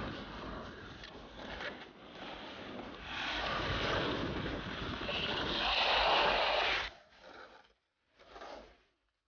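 Skateboard wheels rolling over a concrete skatepark, with wind buffeting the microphone. The rushing noise grows louder over a few seconds, cuts off abruptly about seven seconds in, and is followed by a couple of short, quieter bursts of rolling.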